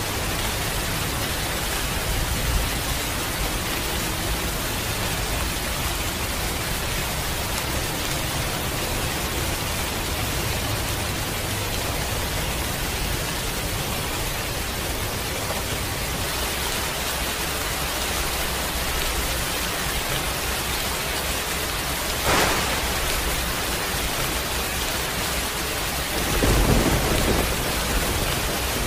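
Heavy rain falling steadily. About three-quarters of the way through comes a sharp crack of thunder, and near the end a low rumble of thunder swells up and dies away.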